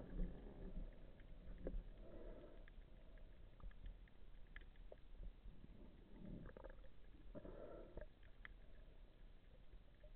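Faint underwater ambience: a low rumble with scattered light clicks and a few brief muffled swishes, around two seconds in and again between six and eight seconds in.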